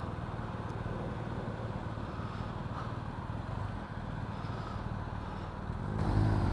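BMW R1250RT's boxer-twin engine idling with a steady low pulsing rumble. Near the end a louder engine sound cuts in abruptly.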